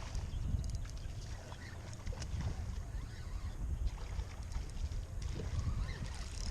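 Wind buffeting the microphone: a low, uneven rumble, with scattered faint clicks.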